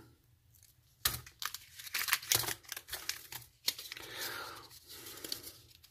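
Paper and plastic MRE packets rustling and crinkling as they are handled and laid out, a string of short crackles that starts about a second in.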